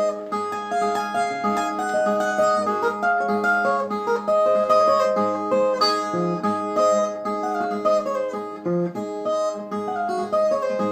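Brazilian viola played solo: a melody of single plucked notes over a repeating low bass note, as the instrumental introduction to a cantoria poem.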